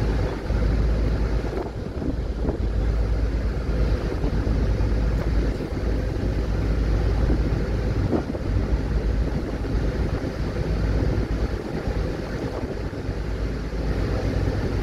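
Wind blowing across the microphone on a ferry's open deck, with a steady low drone from the ferry's engine and water washing along the hull.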